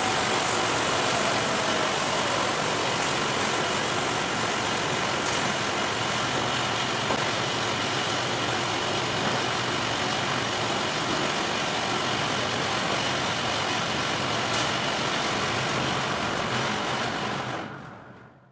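Steady running noise of sawmill machinery, with a couple of faint knocks, fading out near the end.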